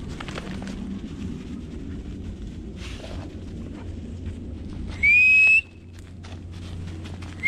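A short, loud whistle about five seconds in, rising slightly and then holding its pitch, used as a call to the Weimaraners; a second whistle begins just at the end.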